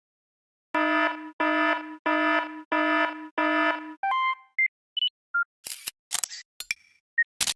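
Samsung Wave phone system sounds: five identical buzzy beeps in a steady row, then a string of short single blips at different pitches and several sharp clicks.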